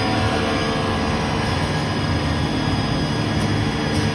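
INDEX G 200 CNC lathe running behind its closed guard window, a steady machine hum with several constant tones over a low rumble.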